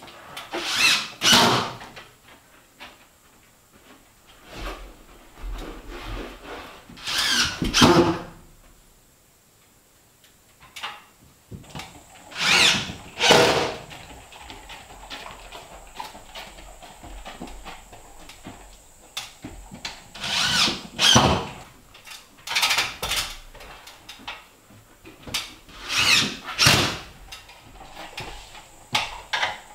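Cordless drill driving screws in short bursts, about five times, several of them in two quick pulls of the trigger, with quieter handling and knocks between.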